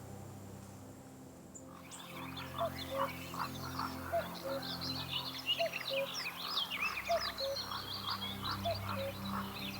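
Swamp ambience: frogs croaking in a steady low chorus, with a short call repeating about once a second. Many small birds chirping come in about two seconds in.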